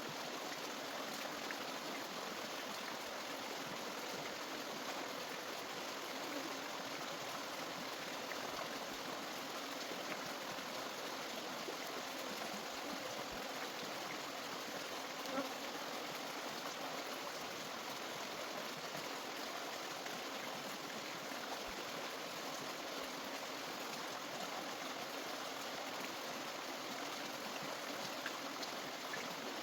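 Steady rushing of running water, like a small stream, with a single faint click about halfway through.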